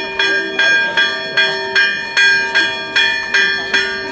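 Church bells ringing a fast, festive peal, struck about three times a second with the tones ringing on between strokes.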